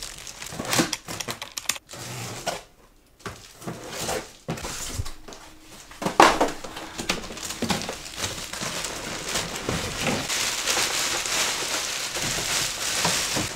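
Crinkling and rustling of packaged baby supplies and fabric being handled, with scattered clicks and knocks. The rustling becomes denser and steadier from about six seconds in.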